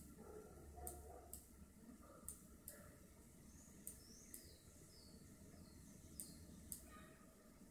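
Faint, irregular clicks of a computer mouse, seven or so a second or more apart, as the settings list is scrolled, over near-silent room tone. A few faint high chirps come about halfway through.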